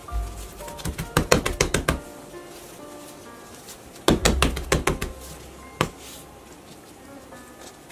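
Music: scattered short tones, with two quick runs of sharp clicks over a low bass note, about a second in and again about four seconds in.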